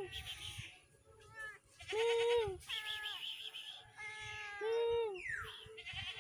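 An upset cat making long, level, drawn-out meows, one about every two and a half seconds, with shorter rising calls in between.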